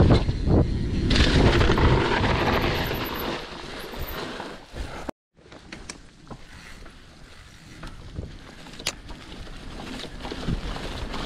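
Wind rushing over a handlebar-mounted GoPro's microphone, with the tyres and rattling frame of a downhill mountain bike riding over a dirt and leaf-covered forest trail. The sound drops out for a moment about five seconds in, then goes on quieter with scattered clicks and knocks.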